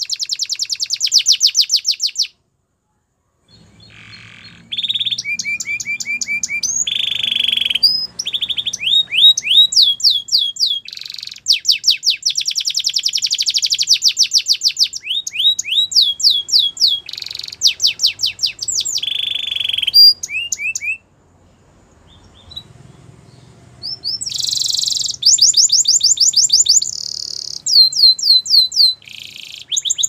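Yellow domestic canary singing: long, loud phrases of rapid trills and quickly repeated notes, some as rising sweeps. The song breaks off briefly a couple of seconds in and again for about three seconds past the middle.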